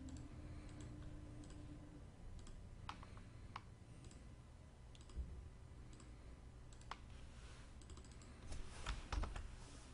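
Faint, scattered clicks of a computer mouse and keyboard, single clicks spaced a few seconds apart and a quick cluster of clicks near the end.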